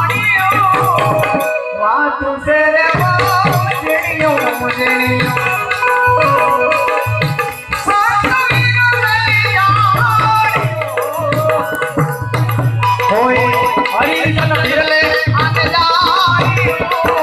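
Gujarati santvani devotional music: a wavering melody line played over drums and rattling hand percussion, briefly thinning out about two seconds in.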